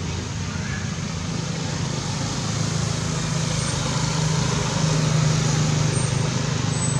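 Motor vehicle engine running with a low hum, growing gradually louder over a few seconds, over a steady hiss like road traffic.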